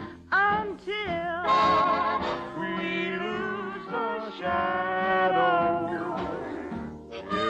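Show-tune singing with a wide vibrato over an orchestra accompaniment.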